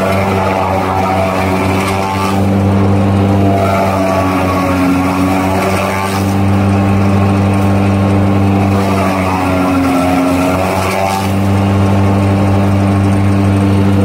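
Heavy diesel engine running steadily, its sound swelling and easing every few seconds.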